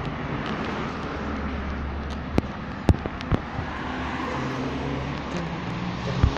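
Road traffic: cars running and passing on the street, a steady hum of engines and tyres. Four sharp clicks stand out over it, twice close together in the middle and once near the end.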